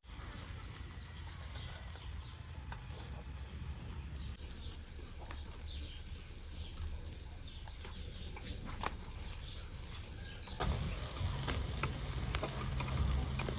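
Fish grilling over hot charcoal: a faint sizzle with scattered crackles and pops over a steady low rumble, growing louder about eleven seconds in.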